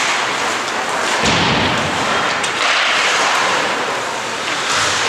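Ice hockey game sound in an arena: a steady loud hiss of play and rink noise, with one dull heavy thud about a second in and a few faint clicks.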